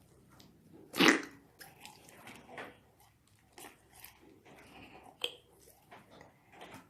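Slime being squeezed and worked by hand, with wet squishes and small popping clicks; the loudest squelch comes about a second in and a sharp pop a little past five seconds.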